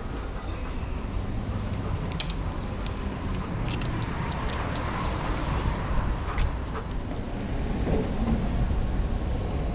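Busy city street: a steady low rumble of traffic, with scattered light clicks and ticks.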